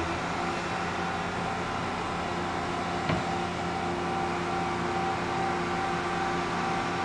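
Torsion test rig's drive running steadily as it twists a twin-spring shaft coupling: a steady machine hum with a few held tones, and one sharp click about three seconds in.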